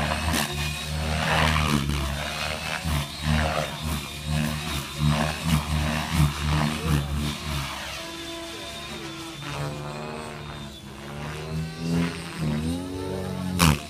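Radio-controlled helicopter in flight: its rotor and motor give a steady buzz, with the pitch sliding up and down in the second half as it manoeuvres.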